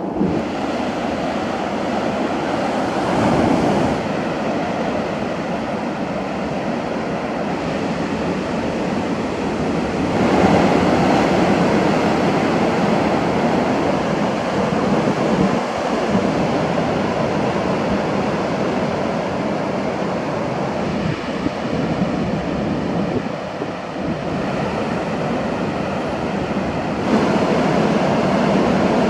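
Ocean surf washing and breaking on the shore, a continuous rushing that swells louder about ten seconds in and again near the end.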